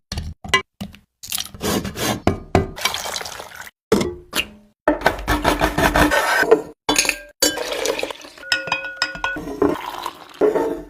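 Clinking and clattering of dishes and utensils, in short snatches broken by sudden gaps.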